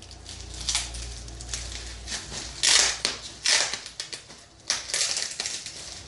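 Phone packaging being handled: crinkling and rustling in a run of sudden bursts, the loudest about halfway through.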